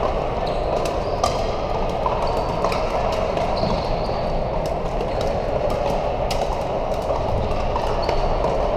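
Steady din of a large indoor hall full of pickleball games, with frequent sharp pops at irregular intervals from paddles hitting plastic balls on the nearby and distant courts.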